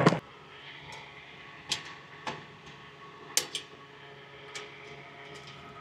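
About half a dozen sharp, scattered metallic clicks and taps of hand tools working at the bleed valve's clamp and locking bolt, over a steady low hum.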